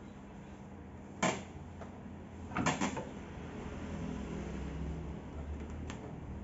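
Parts of a belt sander being handled and adjusted during assembly: a sharp knock about a second in, a short clatter of knocks near three seconds in, and a faint click near the end, with no motor running.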